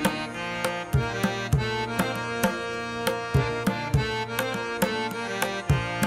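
Instrumental background music: a steady drum rhythm under held melody notes.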